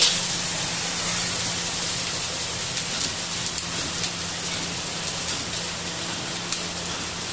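Fried rice sizzling in a hot wok with no stirring: a steady frying hiss that eases slightly toward the end.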